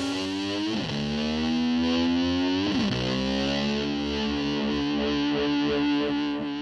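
Distorted electric guitar with effects, its pitch swooping down and back up twice, then holding a long sustained note that starts to fade near the end.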